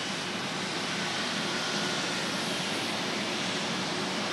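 Distant jet engine noise from a four-engine Airbus A380 on final approach: a steady rushing sound that grows slightly louder as the aircraft nears.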